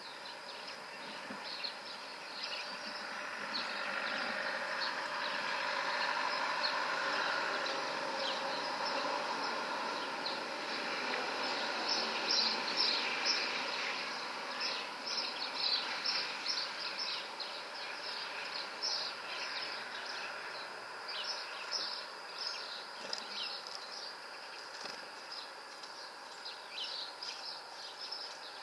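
Small birds chirping, short high calls repeated throughout and coming thick and fast in the second half. Under them a broad rushing noise swells over the first few seconds and fades away again before the middle.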